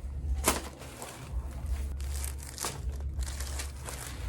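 Crinkling and rustling on a chiropractic treatment table as the patient is shifted and worked on, with two sharp snaps: one about half a second in and one a little past halfway.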